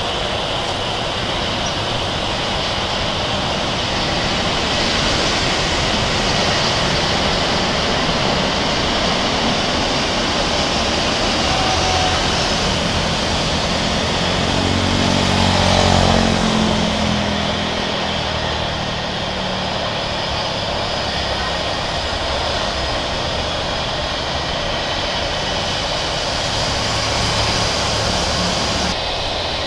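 Airbus A320-232 jet engines (IAE V2500s) on landing, a steady rumble and whine that swells to its loudest about halfway through, its pitch falling as the jet passes, then settles lower.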